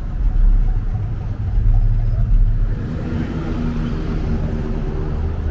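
Road traffic on a city street: a motor vehicle's engine rumbles low for the first half, then settles into a steadier engine drone from about three seconds in.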